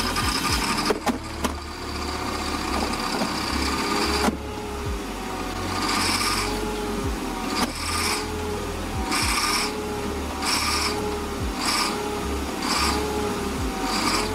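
Large diesel generator engine running rough while belching heavy smoke, with a few sharp knocks in the first seconds. From about halfway on, its note wavers up and down, with a hissing surge about once a second.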